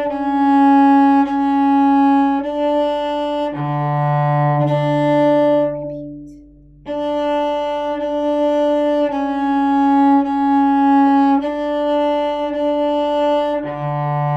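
Cello bowed in separate, even strokes on high D and C sharp on the A string, with a long lower open D about three and a half seconds in and again near the end. A short rest falls just after the middle.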